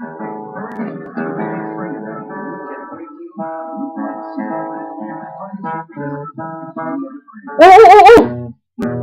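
Acoustic guitar music, plucked and strummed notes. Near the end a loud, high, wavering voice cuts in for about half a second.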